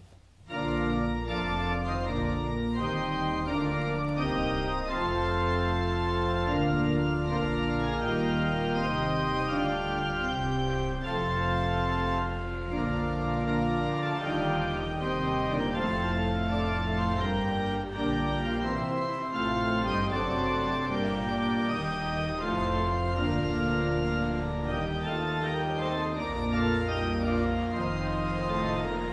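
Church pipe organ playing the postlude: full, held chords over deep pedal bass notes, starting suddenly about half a second in.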